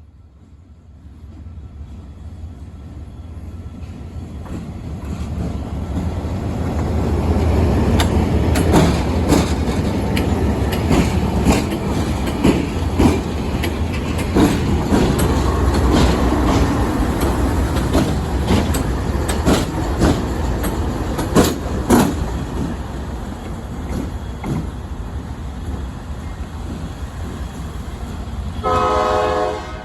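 Train passing through a road crossing: the rumble builds over the first several seconds, the wheels clack sharply over the rail joints through the middle, and then it eases off. A brief horn blast sounds near the end.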